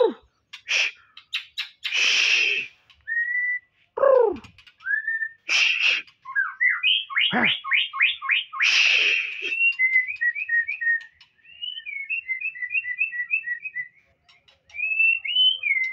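Young caged white-rumped shama (murai batu) singing: clear whistled slurs and sweeps broken by a few harsh, noisy chattering calls, then a run of quick repeated short notes past the middle.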